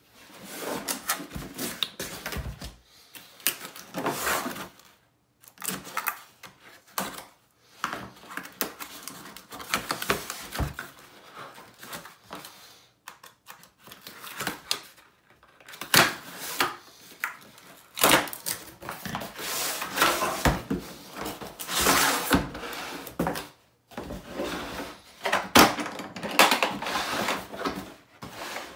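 Unboxing handling sounds: a cardboard box cut open with a small knife and its flaps pulled, then a hard plastic tool case opened on a wooden tabletop. A run of irregular clicks, scrapes and sharp knocks.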